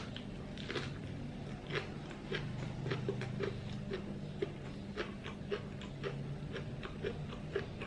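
Chewing a bite of Vietnamese fresh spring roll (rice paper wrapped around shrimp, pork and garlic chives): soft, irregular wet mouth clicks, a few a second, over a faint low hum.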